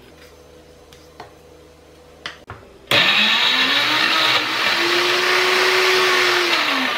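A few light clicks, then, about three seconds in, a small electric mixer grinder switches on and grinds coconut, shallots and hog plum into a chutney paste. Its motor whine climbs, holds steady and starts to wind down near the end.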